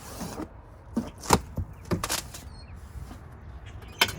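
Cardboard box and packing being handled: a brief scrape at the start, then several sharp knocks and taps, the loudest about a second and a half in and again near the end.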